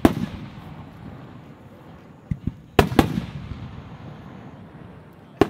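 Aerial firework shells bursting. There is a boom right at the start, two softer pops a little after two seconds, then two booms in quick succession about three seconds in and another boom near the end. Each boom trails off in a rolling rumble.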